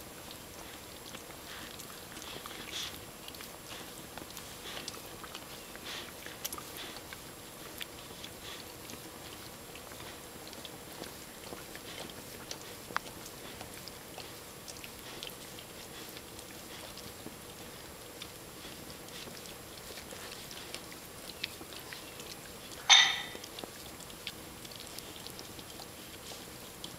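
A dog and a cat grooming each other, licking and nibbling at each other's fur: soft, scattered licking and mouthing clicks, with one short, louder noise near the end.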